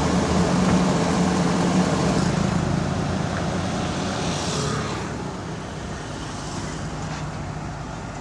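Diesel engine of heavy construction machinery running steadily with a low hum, getting somewhat quieter about five seconds in.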